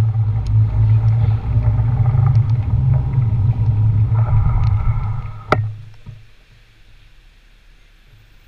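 Low, steady rumble of wind and road noise on a bicycle-mounted GoPro while riding. It drops away after a sharp click about five and a half seconds in, as the bike comes to a stop, leaving faint street background.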